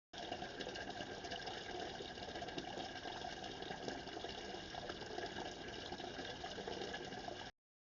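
Sonified image data: the picture's RGB colour channels turned into sound, giving a dense, steady rushing noise like running water with faint held tones in it. It starts abruptly and cuts off suddenly near the end.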